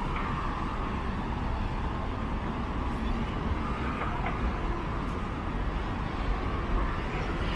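Steady urban background noise: a continuous low rumble with a hazy din above it.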